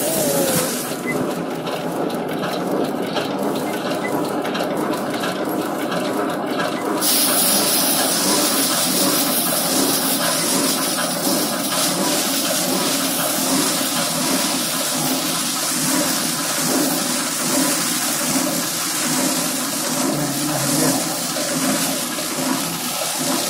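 Mini thresher machine running steadily, a continuous rushing noise of the machine working through the crop.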